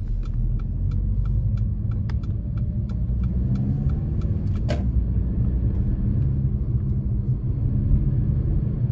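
Road and engine noise inside a moving car's cabin: a steady low rumble. There are faint light ticks through the first half and a single sharp click about five seconds in.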